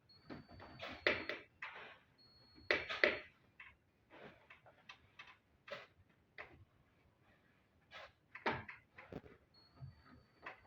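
Irregular knocks, taps and scrapes of hands-on fitting work on curtain fixtures, some sharper and louder than others. A faint, thin high tone comes and goes.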